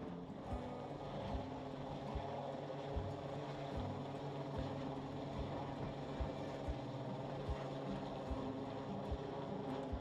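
A steady helicopter drone, heard from the camera hanging under the AS350 Squirrel, under background music with a slow, even beat of about one low thump every 0.8 seconds.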